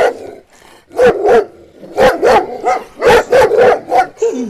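A man imitating a dog, barking 'bow-wow' with his voice in quick bursts of two to four barks.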